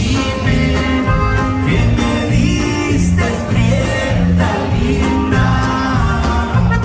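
A live conjunto band playing, with button accordion, bajo sexto and bass guitar over a steady bass-note beat, and a voice singing.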